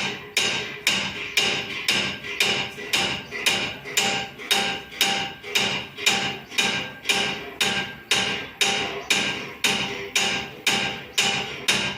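Hammer striking copper sheet in an even rhythm, about two blows a second, each blow ringing briefly.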